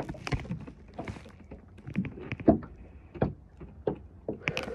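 Irregular knocks, thumps and rubbing on a fishing boat's deck, picked up up close by a camera that has fallen over. The loudest thump comes about two and a half seconds in.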